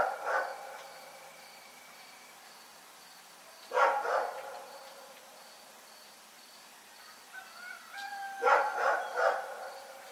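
Dog barking at night in short bursts: a few barks right at the start, one or two about four seconds in, and three close together near the end.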